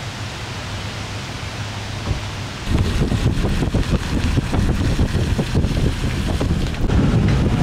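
Steady rushing wind noise, then about two and a half seconds in a louder, buffeting rumble of wind hitting the microphone from a moving vehicle.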